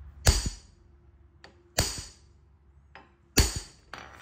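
Hammer striking a pickle fork wedged into a worn golf-cart tie rod end ball joint: three sharp metal whacks about a second and a half apart, each with a short ring, driving the tapered stud out of the spindle.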